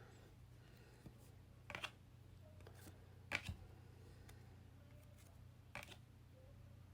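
Faint handling of trading cards: three short, soft rustles as cards are slid and flipped, over a low steady hum.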